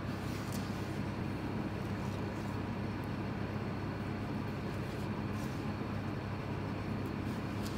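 A steady low mechanical hum with an even level, with a few faint short ticks of a knife against a plastic cutting board while fish fillets are sliced.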